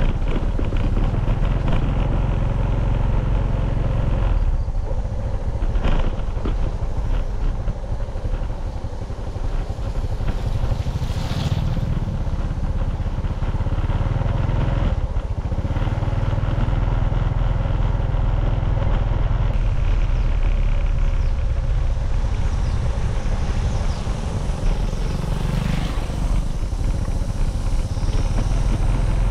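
Motorcycle engine running steadily as the bike is ridden along a rough, muddy dirt road, with a few knocks and rattles along the way.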